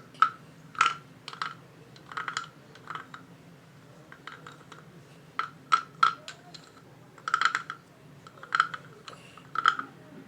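Decorative wooden croaking frog (a frog guiro) played with its stick, giving short wooden rasping clicks, about a dozen strokes at an uneven pace.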